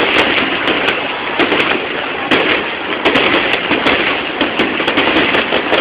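Fireworks display: a steady dense crackle with many sharp bangs and pops throughout.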